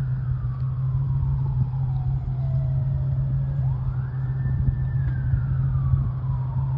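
Wind buffeting a phone microphone with a heavy low rumble, and a siren wailing over it: its tone falls slowly for about three and a half seconds, sweeps quickly back up, holds briefly, then falls again.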